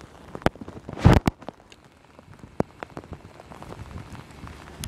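Rain falling, with drops hitting the phone right at its microphone as irregular sharp taps over a faint hiss of rain. A louder cluster of taps comes about a second in.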